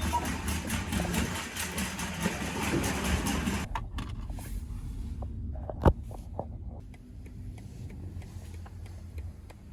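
Steady low vehicle rumble. A busier wash of noise fades out after about three and a half seconds, leaving a few light clicks and one sharp thud about six seconds in.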